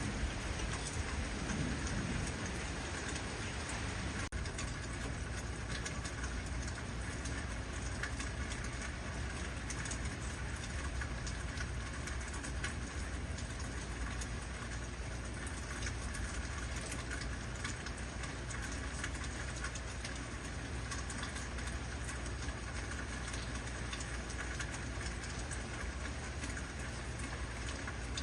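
Heavy rain falling steadily: a constant hiss of rain on a surface, with many individual drop hits.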